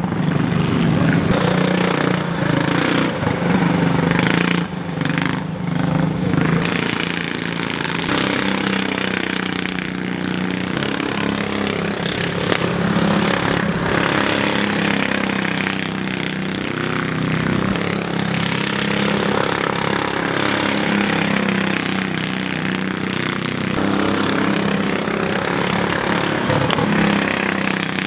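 Jr Mini Cup race car engine running at racing speed, a steady engine note whose pitch rises and falls and shifts every few seconds.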